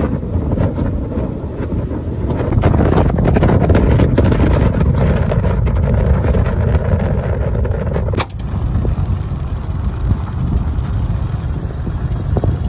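Motorbike ride: the engine running with wind buffeting the microphone, a dense low rumble. A click and a brief drop in level come about eight seconds in.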